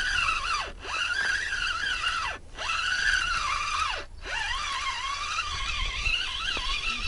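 Fishing reel whining under load as a hooked fish is played. It is a wavering squeal whose pitch follows the speed of the line. Three times, evenly spaced, it slides down and breaks off before picking up again.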